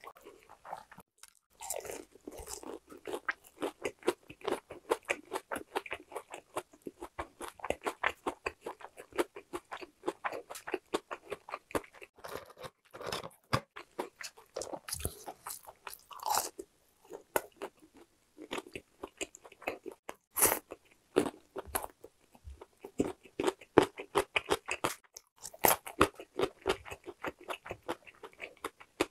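Close-up crunching and chewing of crispy boneless fried chicken in a seasoned, powder-fried coating: rapid crackling bites one after another, with a few brief pauses.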